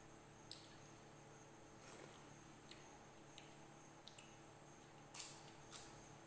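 Quiet eating sounds: scattered sharp clicks and crunches as crisp papad is bitten and chewed, the loudest two coming about five to six seconds in, with faint clicks of hands working rice on steel plates.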